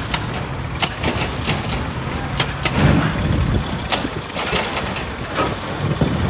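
Heavy machinery running with a steady low rumble, with sharp irregular knocks and clatter of rock against steel throughout; a louder surge of rumble about three seconds in.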